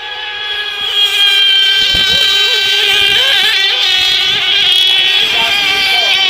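Radio-controlled mono-hull racing boats' small, high-revving engines screaming, the pitch wavering up and down as the throttle changes, growing louder about a second in.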